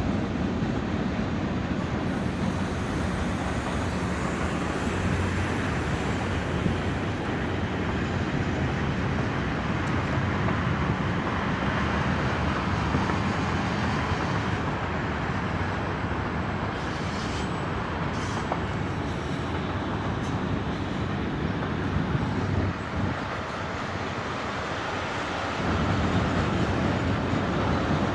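Freight train cars rolling across a rail bridge, a steady rumble mixed with road traffic. The sound drops briefly, then grows louder again near the end as a road vehicle comes closer.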